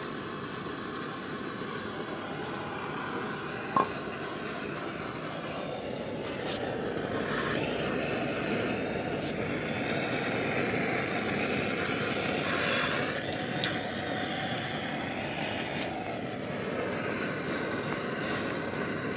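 Handheld propane torch burning with a steady hiss while its flame heats the hub of a harmonic balancer so that it expands for fitting on the crankshaft. A single sharp click about four seconds in.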